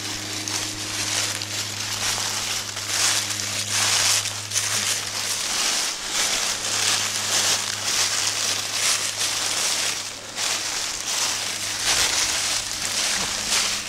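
Footsteps crunching and rustling through deep dry fallen leaves, one step after another, over a steady low hum.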